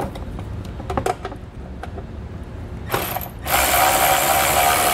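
A few light clicks as a socket goes onto a 10 mm bolt. Then a cordless electric ratchet buzzes briefly near the three-second mark and runs steadily for about two seconds, backing the bolt out of the belly pan.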